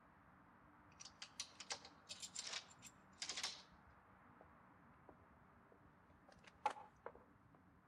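Faint, irregular clicks and rustling from about a second in to nearly four seconds in, then a single sharper click near the end.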